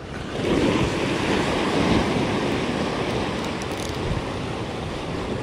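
Sea waves surging and washing over the rock ledge, with wind on the microphone; the rush of water swells up about half a second in and then holds steady.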